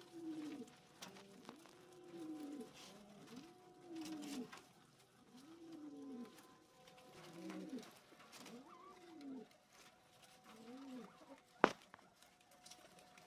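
A dove cooing over and over, each low coo rising and then falling in pitch, about one a second. A single sharp click near the end.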